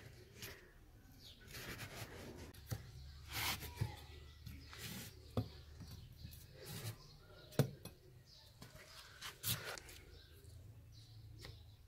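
Knife blade cutting and scraping slits into a mud-and-straw clay tandoor lid: faint, irregular short scratches with several sharp clicks as the blade digs in.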